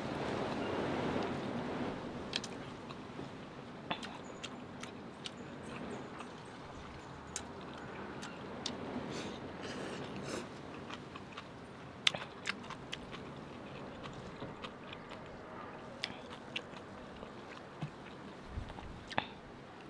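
Close-miked eating of noodles: a rushing slurp for the first two seconds or so, then chewing with scattered sharp wet mouth clicks.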